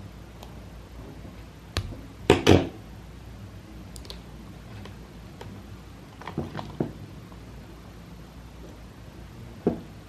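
Crimping pliers, wire and a heat-shrink butt connector being handled on a tabletop: a sharp click, then a louder clatter about two and a half seconds in, a few smaller clicks around six and a half seconds, and another click near the end.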